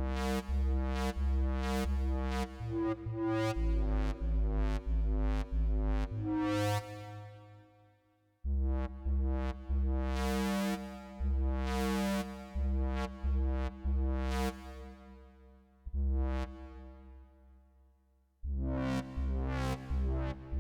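Electronic music from hardware synthesizers and a sampler: a deep, pulsing synth bass in short repeated notes under chords and bright synth stabs. The sound fades away twice, at about eight and about eighteen seconds in, and each time comes straight back in.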